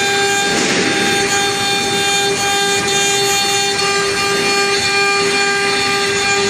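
CNC router spindle whining at a steady pitch while its bit mills wood, with rougher cutting noise in the first second.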